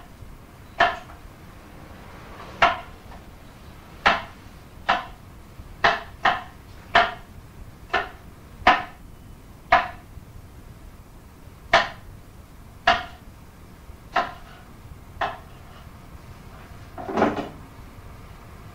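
A run of about fifteen sharp knocks and clacks of hard objects, roughly one a second at uneven spacing, each with a short ring; a longer, duller knock comes near the end.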